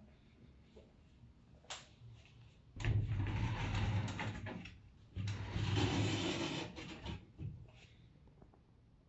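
Sliding doors of a built-in wardrobe rolling along their track, in two long rolling rumbles a little over a second apart, with a few light clicks before and after.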